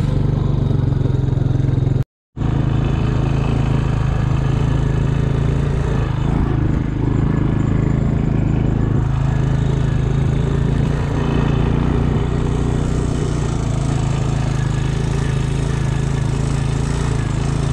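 Honda Rancher 350 ATV's single-cylinder engine running steadily as the four-wheeler is ridden, with a deep even hum. The sound cuts out completely for a moment about two seconds in.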